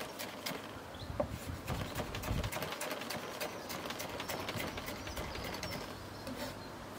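Chef's knife dicing tomatoes on a wooden cutting board: a quick run of light chopping taps, busiest in the first few seconds. Birds call faintly in the background.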